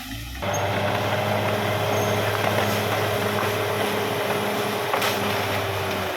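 Caterpillar D6R XL bulldozer's diesel engine running steadily under load, a loud, even engine note that sets in abruptly about half a second in.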